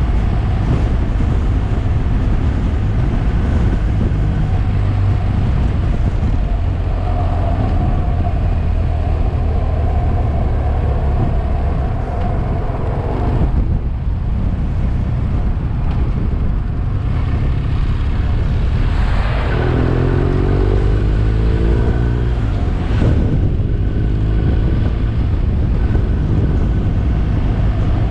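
Motorcycle engine running under way, with wind rushing over the microphone. About twenty seconds in, the engine note rises as the bike accelerates.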